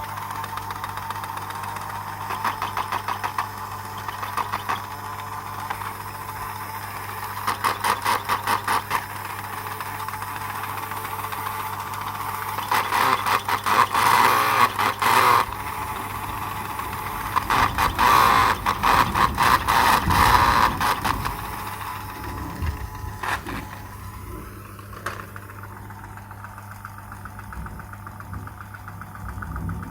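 A small motor running with a steady hum, broken four times by bursts of fast, even rattling clicks lasting one to three seconds each.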